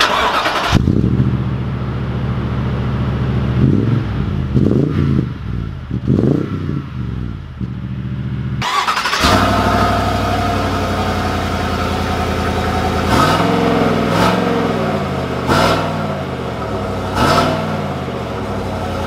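Exhaust clips of two pickup trucks in turn, recorded low at the tailpipes: a 2020 Toyota Tundra TRD Pro and a 2020 Chevrolet Silverado 1500 Trail Boss. Each engine idles and is blipped a few times, with quick revs that rise and fall. The recording cuts from one truck to the other about nine seconds in.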